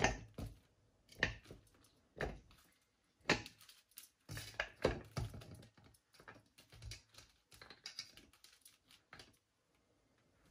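Pieces of tomato, onion and green chilli dropped one by one into a plastic food-chopper bowl, with a plastic basket being handled: a series of irregular light knocks and clatters.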